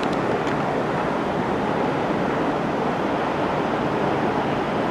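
Fast brown water rushing and churning steadily through a concrete channel and basin at a hydroelectric plant.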